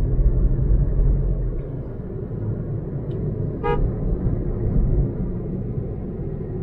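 Steady low road and engine rumble of a car driving, heard from inside the cabin. About three and a half seconds in, a vehicle horn gives one short toot.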